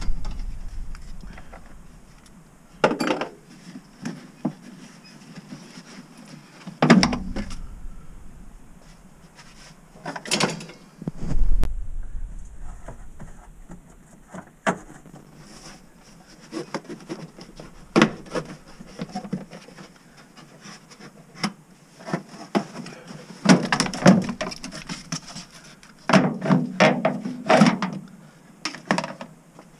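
Hands and tools working on the plastic cowl panel and parts under a car's hood: scattered knocks, clicks and rattles of plastic and metal, with a busier run of clattering near the end.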